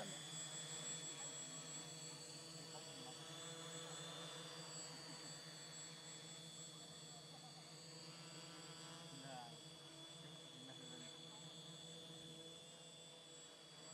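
XAircraft X650 V4 quadcopter's electric motors and propellers hovering, a faint steady whine made of several held pitches.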